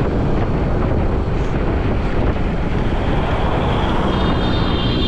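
Motorcycle running at road speed with heavy wind buffeting on the microphone, a steady dense rumble.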